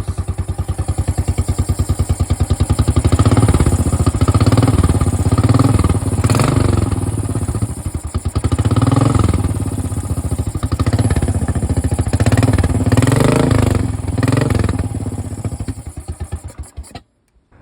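Royal Enfield Bullet single-cylinder four-stroke engine, fitted with a changed exhaust and air filter, running with its throttle blipped repeatedly so the revs rise and fall every couple of seconds. Near the end the engine stops.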